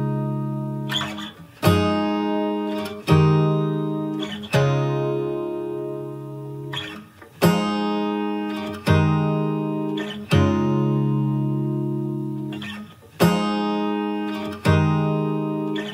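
Background music: strummed acoustic guitar chords that ring out and fade, a new strum about every one and a half seconds.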